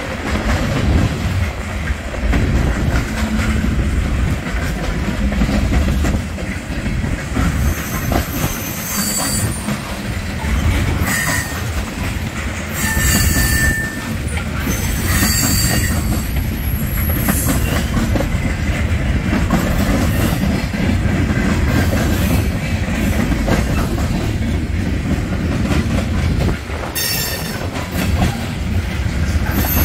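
Freight train of covered hoppers and tank cars rolling past, wheels rumbling and clicking on the rails, with brief high-pitched wheel squeals coming and going several times.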